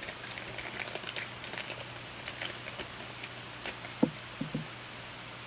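Trading-card pack wrapper crinkling as it is torn open and the cards are handled, with a few light taps about four seconds in.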